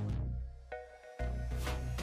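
Background music with a deep bass line and sharp drum hits.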